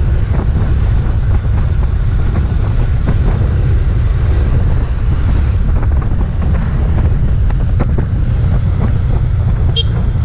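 A motorcycle on the move: wind buffeting the microphone over the running engine, with scattered small knocks.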